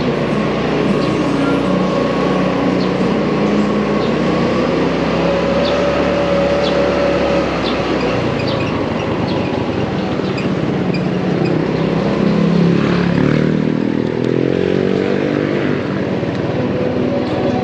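Motorcycle engine running while riding, its pitch shifting up and down a few times.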